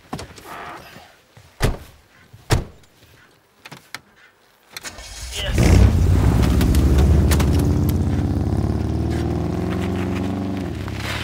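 Car doors slam twice as people get in, with a few small clicks after. Then, about five seconds in, the car's engine starts and runs loudly under heavy revs, its pitch slowly sinking before it drops back near the end.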